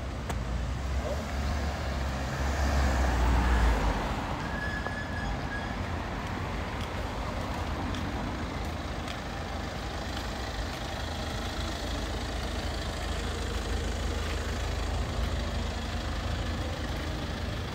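Street traffic: a steady low rumble of engines and tyres, with one vehicle passing close by about two to four seconds in, the loudest moment.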